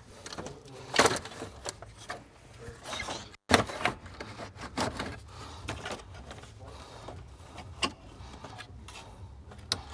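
Plastic clicks, knocks and scraping as a radiator fan shroud is worked down into the engine bay, rubbing past hoses and wiring. The sharpest knocks come about a second in and at about three and a half seconds, with lighter clicks throughout.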